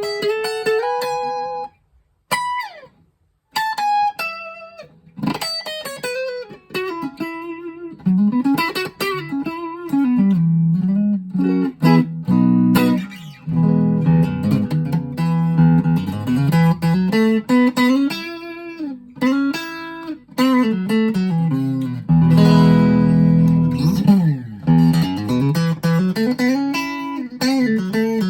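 Schecter OL-PT-TH thinline electric guitar played through a small VOX Mini5 practice amp: single-note lead lines and chords, with many string bends and vibrato. The playing stops briefly about two seconds in and again a second later.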